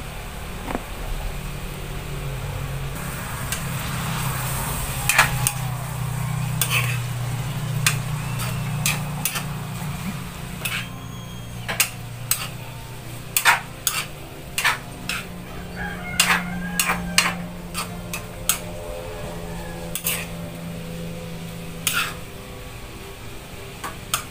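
Metal spatula scraping and knocking against a wok as bitter melon and carrots are stir-fried, over a steady sizzle and a low hum. The knocks come more often in the second half.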